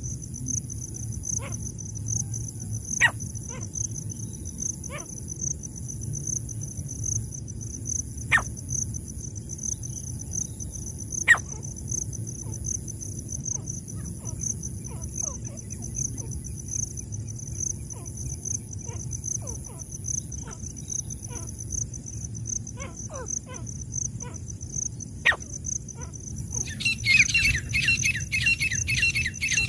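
Grey francolins giving scattered short chirps over a steady, pulsing high insect drone. Near the end a fast run of loud, rhythmic repeated calls breaks in.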